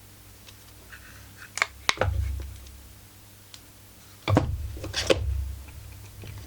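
Workshop handling sounds as a chainsaw is worked on: sharp metallic clicks and clinks of hand tools against the saw, with dull bumps as the saw is shifted. They come in two bursts, about a second and a half in and again a little past four seconds in.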